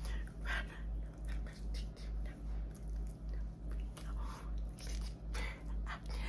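A low hum throbbing evenly about two and a half times a second, with soft lip smacks and mouth clicks over it.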